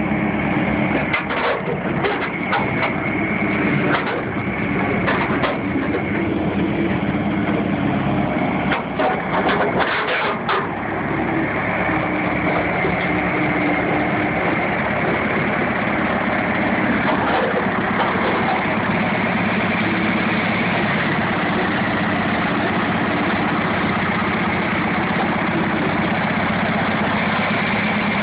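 John Deere loader tractor's engine idling steadily. Short crackles come and go over the first ten seconds or so.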